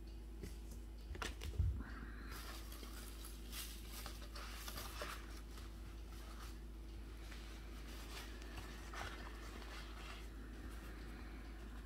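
A few light clicks in the first couple of seconds as a small resin miniature is set down on a paper-covered table, then faint soft rustling over a low steady hum.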